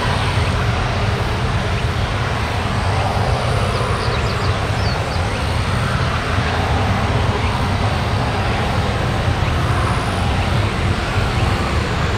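Boeing 767-300 jet engines running at low power as the airliner rolls along the runway after landing, a steady, even noise with a deep rumble underneath.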